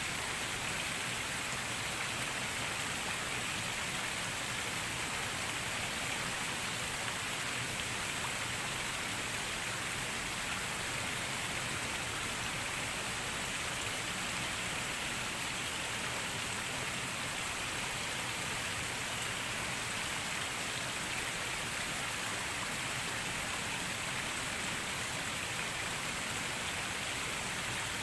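Steady rain falling, an even hiss with no single drops or knocks standing out and no change in strength.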